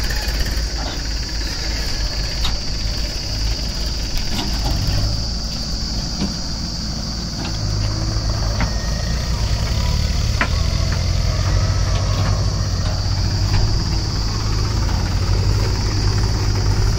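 Diesel engines of a JCB backhoe loader and a New Holland farm tractor running, a steady low rumble that grows louder about seven or eight seconds in, with a steady high hiss above it.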